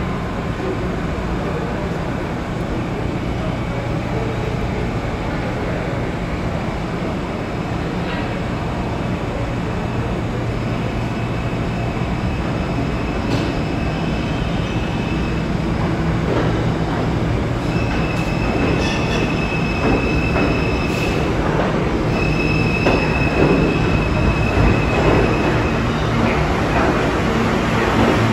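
New York City Subway E train of R160 cars pulling into an underground station: a steady rumble that grows louder as the train nears. From about a third of the way in, long high squeals come and go as it slows alongside the platform.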